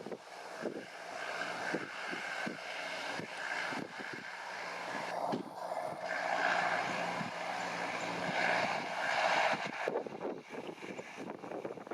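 New Holland T5050 tractor's diesel engine running steadily under load while ploughing, with wind buffeting the microphone. The hiss swells louder about halfway through and eases off near the end.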